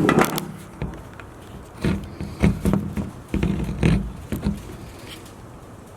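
Irregular knocks and clunks of hands working at a pickup truck's tail light, several in the first four seconds, then quieter.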